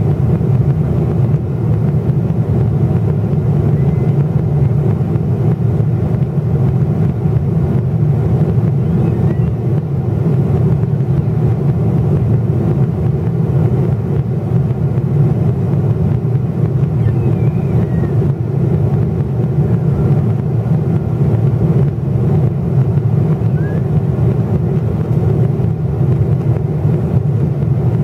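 Steady low drone inside the cabin of a Boeing 777-300ER in the climb near cruise altitude, from its GE90-115B engines and the rush of air past the fuselage.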